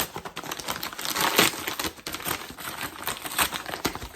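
Plastic or paper packaging being torn open and crinkled by hand, a dense run of irregular crackles and rustles.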